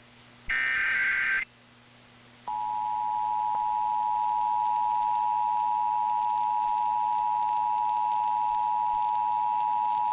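Emergency Alert System signalling: a burst of warbling digital data tones, the end of the previous test's end-of-message code, lasts about a second. About two and a half seconds in, the EAS two-tone attention signal starts and holds steady, a dual tone of about 853 and 960 Hz that announces the next alert.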